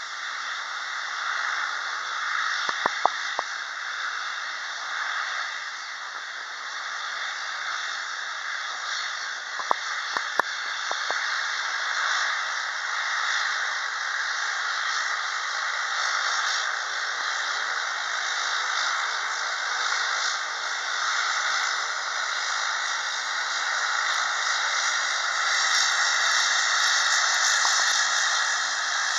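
Airbus A320-232's IAE V2500 turbofan engines at taxi power, heard as a steady hiss that grows louder near the end as the airliner taxis side-on past. A few sharp clicks about three and ten seconds in.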